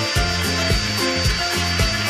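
Background music with a steady beat, about two beats a second, over sustained changing notes.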